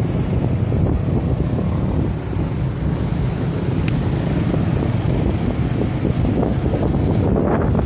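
Wind buffeting the microphone of a camera carried on a moving motorcycle, a loud steady rush with motorcycle engine and road noise beneath it.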